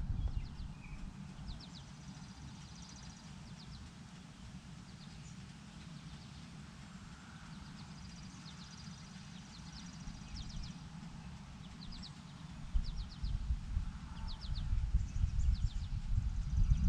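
Wind buffeting the microphone with a low, uneven rumble that grows stronger and gustier in the last few seconds, while small birds chirp in quick runs of three or four high notes with the odd fast trill.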